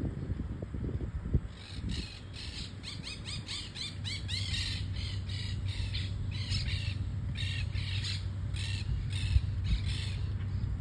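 Birds calling over and over with harsh cawing calls, starting about a second and a half in, crowding together for a moment, then settling to about two calls a second, over a low steady rumble.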